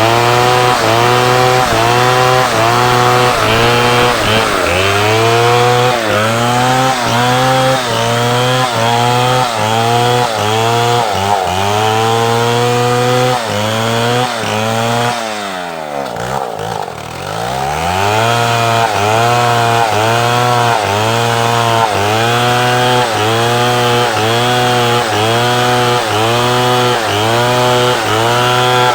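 Two-stroke chainsaw running at high revs while cutting wood, its engine pitch dipping and recovering about once a second. About halfway through the revs fall steeply toward idle for a second or two, then the saw is revved back up and the same rhythmic cutting resumes.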